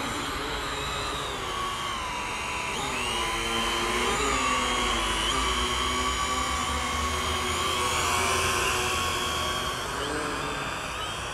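Quadcopter drone's electric motors and propellers whining in flight, the pitch wavering up and down as the throttle changes. It grows louder in the middle.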